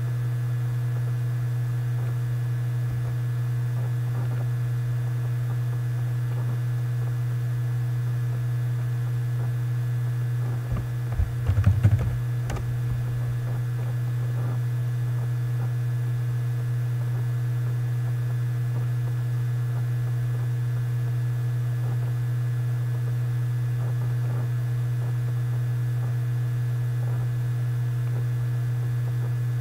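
Steady low electrical hum, with a short flurry of computer keyboard clicks about eleven seconds in.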